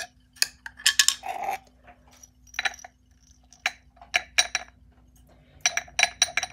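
Glass jar and metal lid clinking, then small dried hamster treats tipped from a plastic cup clattering into a stainless steel food bowl of pellets: a string of sharp clicks, several with a short metallic ring.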